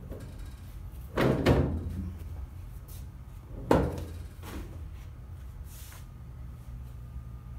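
Hand-operated tabletop letterpress working: a heavy double clunk about a second in as the handle is worked, then another sharp clunk near four seconds as the press is opened, followed by a few lighter knocks.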